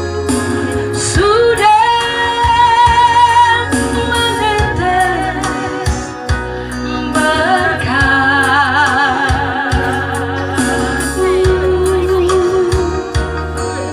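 Gospel-style song with a woman singing in long held notes with vibrato over a steady bass and keyboard accompaniment.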